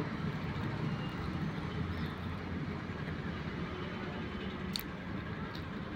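Steady low background rumble, with a single light click near the end as the plastic toy track is handled.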